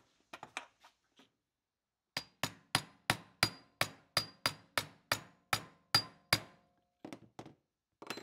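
A hand hammer striking a small metal plate laid on a wooden block: a few light taps, then a run of about thirteen sharp, ringing blows at roughly three a second, then a few lighter taps near the end.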